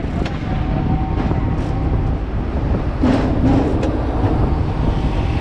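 Hong Kong double-decker electric tram running along street track, heard from the driver's cab: a steady low rumble of the motors and wheels on the rails with a thin steady whine. A few sharp clicks come through, several close together about three seconds in.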